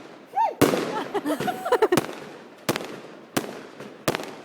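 Aerial fireworks bursting: about five sharp bangs, each with a fading tail. The first bang is followed by a second or so of dense crackling.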